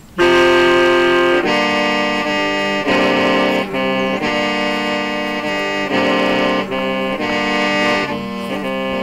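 Hmong qeej, a bamboo free-reed mouth organ, playing a tune of held notes that change about once a second, several pipes sounding together over a steady low drone.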